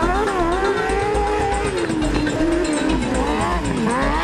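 Off-road racing buggy's engine revving hard, its pitch rising and falling as the throttle is worked through loose dirt corners. The revs drop sharply near the end, then climb again.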